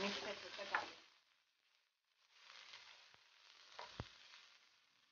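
Chopped onion and ginger garlic paste sizzling in hot oil in a non-stick pan while a wooden spatula stirs them, with two light knocks of the spatula against the pan. The sound drops out for about a second early on, then comes back fainter.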